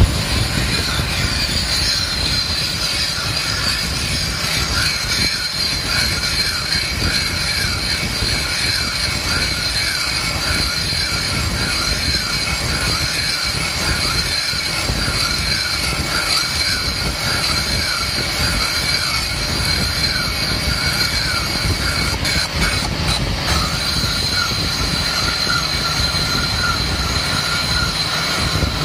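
Lathe parting off a metal cylinder liner (sleeve) with a parting tool: a steady, high, slightly wavering squeal from the tool cutting into the spinning sleeve over the running machine.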